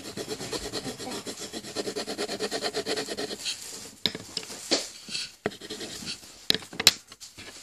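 Coloured pencil scribbling on paper: fast, even back-and-forth scratching strokes for about three seconds as an area is filled in green. Then a few scattered strokes and sharp clicks and knocks as the pencil is lifted and handled.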